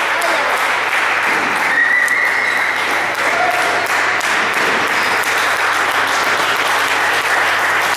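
Audience applauding steadily, with a couple of short pitched calls over the clapping.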